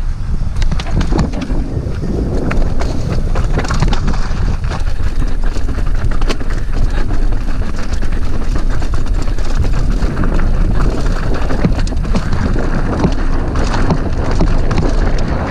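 Mountain bike riding down rocky singletrack: constant wind rush on the camera microphone, with a dense clatter of knocks and clicks as the bike rattles over the rocks.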